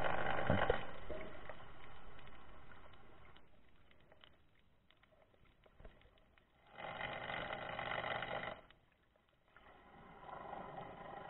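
Muffled underwater rushing of water and bubbles, heard through an underwater camera's housing. It swells in spells of a couple of seconds with quieter gaps between: loud at first and fading, rising again for about two seconds around the middle, then returning more softly near the end.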